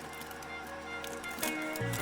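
Quiet background music with held, sustained chords.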